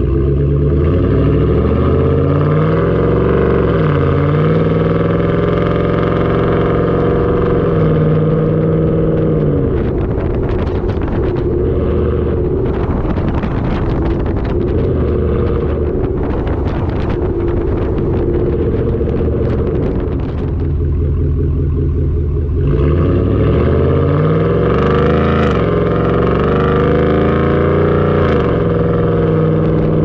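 Ford F-150's 5.0 V8 through a Borla ATAK exhaust, heard right at the tailpipes while driving. The exhaust note climbs in pitch and drops back as the truck accelerates and shifts, twice. In the middle it holds a steady drone under a rough, rushing noise.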